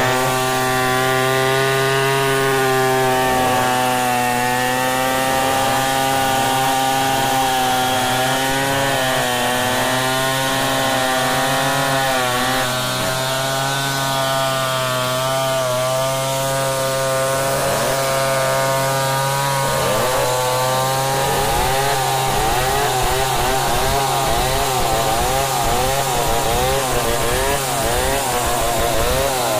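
Large two-stroke chainsaw with a long bar ripping lengthwise through a log in freehand milling, running at full throttle with its pitch wavering as the load changes. In the second half a second chainsaw also cuts, and its pitch weaves against the first.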